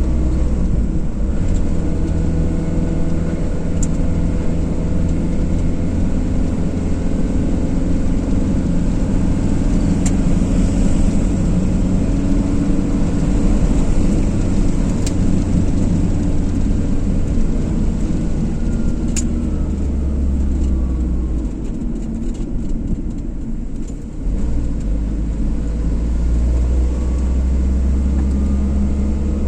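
A car driving: steady engine and tyre noise on the road, with a low rumble. The noise drops briefly about three-quarters of the way through, then picks back up.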